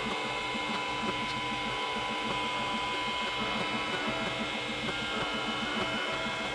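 Elegoo Centauri Carbon 3D printer running, moving its toolhead and bed. There is a steady machine whine with a quick, even pulsing about five times a second.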